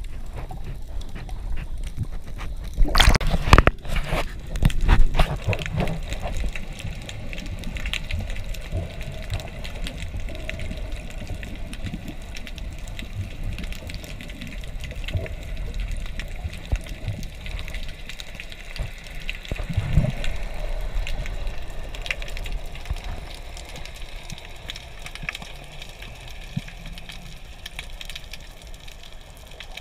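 Muffled underwater water noise as heard by a camera in a waterproof housing during a free dive, a steady low rumble and hiss. A cluster of loud sharp knocks and clicks comes about three to five seconds in, another near the twenty-second mark, and smaller ticks are scattered through.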